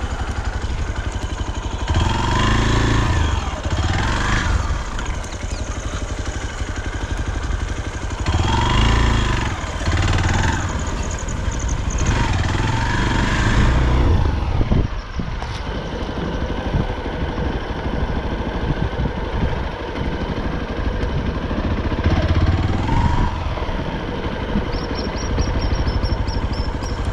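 Hero XPulse 200's single-cylinder engine being ridden, the revs rising and falling with several throttle surges.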